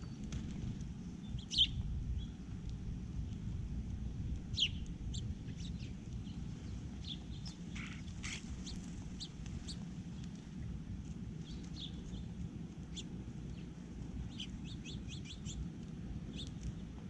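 Small birds chirping in short, scattered calls, two louder ones early and a quick run of chirps near the end, over a steady low background rumble.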